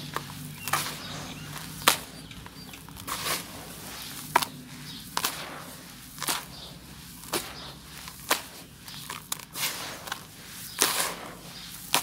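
Dry brown dirt clumps crumbling and falling onto a heap of loose soil, with irregular sharp crunches every second or so over a gritty hiss of pouring dirt.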